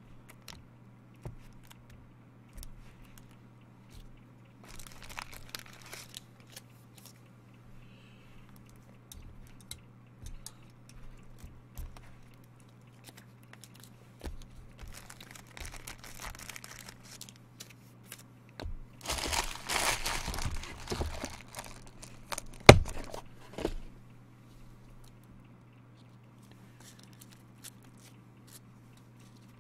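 Foil trading-card pack wrappers being crinkled and torn open, with cards handled and clicking against the table. The heaviest crinkling comes about two-thirds of the way through, followed by a single sharp knock, the loudest sound, under a steady low hum.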